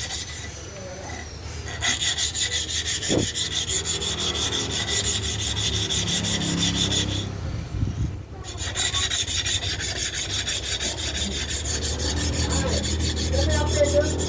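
The cutting blade of a manual hair clipper being rubbed back and forth by hand against an abrasive to sharpen it: rapid, even scraping strokes that stop briefly a little past halfway, then carry on.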